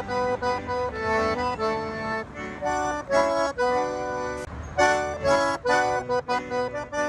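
Accordion playing a melody over held chords, the notes changing several times a second, with a brief break about four seconds in.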